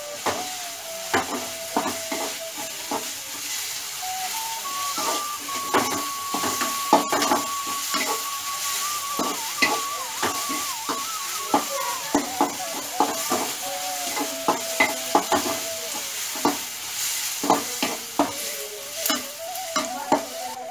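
Steel spoon stirring and scraping chopped onions and tomatoes as they fry in a metal kadai. The spoon clinks against the pan in quick, irregular strokes over a steady sizzle.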